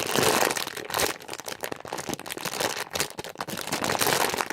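Close, continuous crinkling and rustling handling noise as a jumbo foam squishy toy is squeezed and handled by hand.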